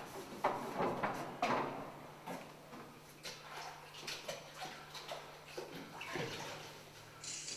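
Wet sponge swept in quick strokes across a chalkboard, a swishing scrub repeated about every half second, loudest in the first two seconds and then fainter.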